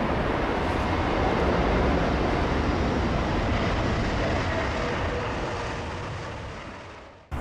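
Airbus A380 airliner's four jet engines running as it rolls out along the runway just after touchdown, a steady rushing noise heard from outside the airfield. The noise fades away over the last two seconds or so.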